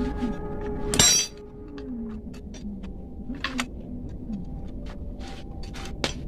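Metal tool clicks and clinks as a T-handle wrench works the screws of a scooter's throttle body held over a metal bowl, with one loud ringing metallic clank about a second in.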